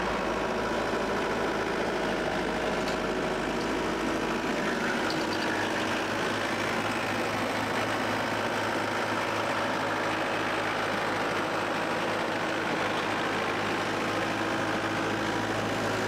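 New Holland C232 compact track loader's diesel engine running at a steady speed.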